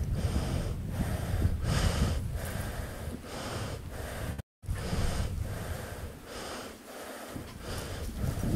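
Heavy rhythmic panting, about two breaths a second, with wind rumbling on the microphone; it cuts out for a moment about halfway.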